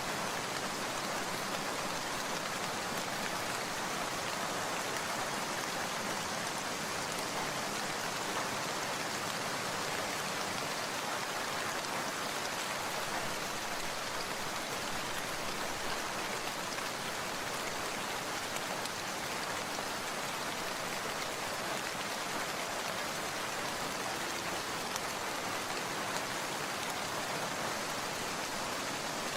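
Steady rain falling, an even patter with a few louder single drops.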